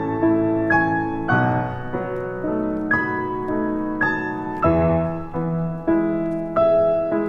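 Background piano music, a slow, gentle melody of single struck notes and chords that ring and fade.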